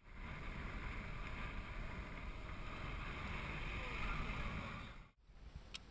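Wind rushing over a helmet camera's microphone and tyre rumble from a mountain bike ridden fast downhill. It is a steady rushing that cuts off suddenly about five seconds in, and after that comes a quieter stretch with a single click.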